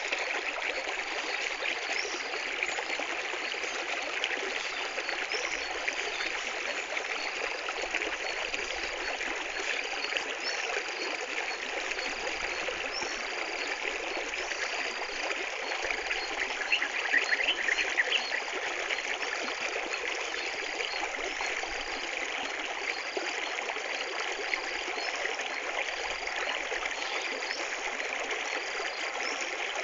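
Running water flowing and trickling steadily, with a brief spell of splashing a little past the middle.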